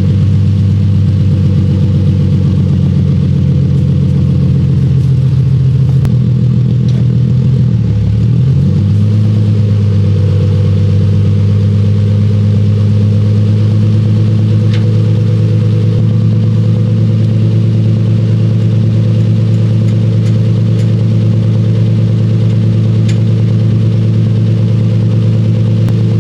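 Nissan 350Z's V6 engine running steadily at idle, with a brief dip and recovery in engine speed about eight seconds in. A few faint clicks sound now and then over it.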